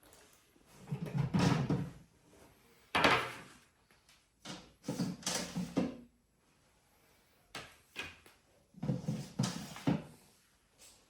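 Kitchen dehydrator trays and metal sheet pans being handled and set in place, heard as about five short bouts of knocking and scraping with pauses between them.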